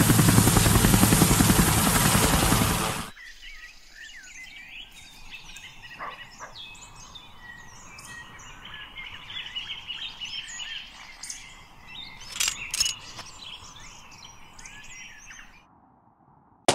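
Helicopter rotor noise, loud and chopping, that cuts off suddenly about three seconds in. Then a much quieter ambience of small birds chirping, which fades away just before the end.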